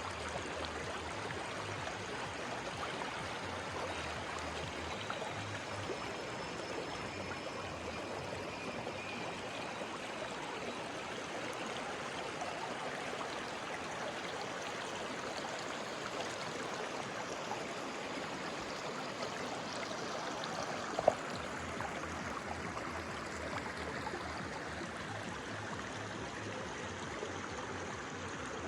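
Forest stream flowing steadily over rocks, an even rushing and gurgling. A single sharp crack stands out about two-thirds of the way through.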